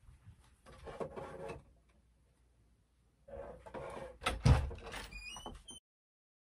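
Front door being unlatched and opened: rustling, then clicks and a heavy knock at the latch, followed by a few brief high squeaks. The sound cuts off abruptly.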